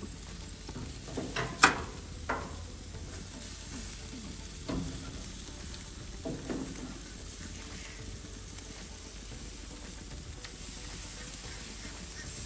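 Jerk chicken sizzling steadily as it cooks, broken by a few sharp knocks, the loudest about one and a half seconds in.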